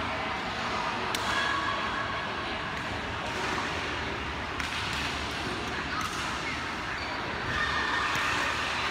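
Badminton rally: sharp racket hits on the shuttlecock a few seconds apart, over a steady hall background.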